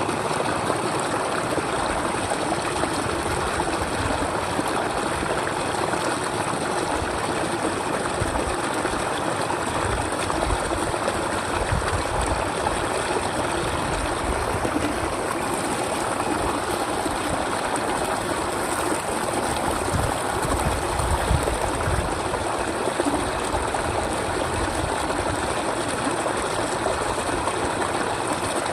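Steady rush of running water, like a stream or trickle, continuing without a break.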